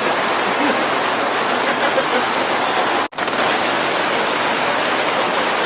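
Heavy rain pouring down in a steady, loud hiss, cut off for an instant about three seconds in.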